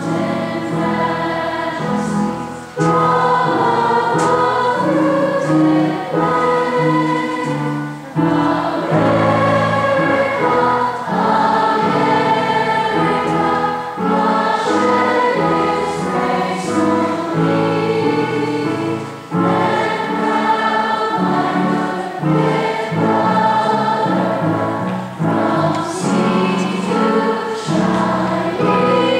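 A choir singing a song in sustained phrases, with brief pauses between phrases.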